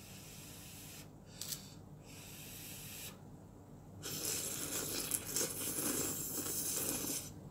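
A person slurping instant ramen noodles off chopsticks: quieter sucking and breathing at first, then one long loud slurp of about three seconds, starting about four seconds in.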